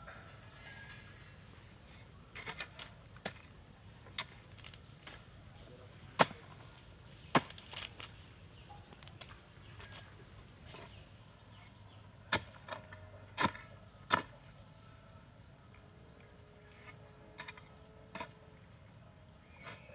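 Short-handled hand hoe chopping into dry soil: sharp, irregular strikes a second or several apart, some much louder than others, with softer scrapes of earth between them.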